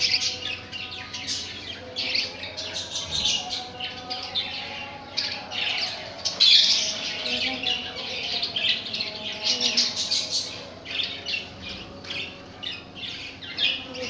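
Budgerigars chirping and squawking continuously in quick, overlapping calls, with no pause.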